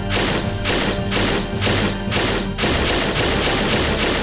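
Automatic-fire sound effect for an animated Chauchat automatic rifle: evenly spaced shots about two a second, quickening to about four a second some two and a half seconds in, over background music.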